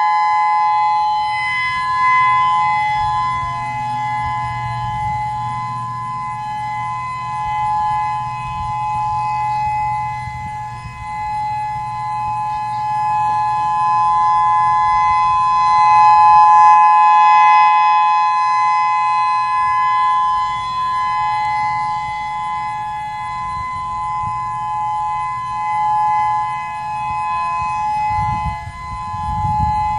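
Federal Signal EOWS-612 electronic outdoor warning siren sounding its steady Alert signal: two steady tones held together, swelling and fading in loudness every eight or so seconds.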